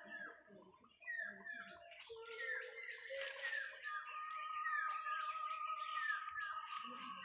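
Bird calling outdoors: a run of short falling notes repeated about two or three times a second, with a steady thin tone running beneath them through the latter part.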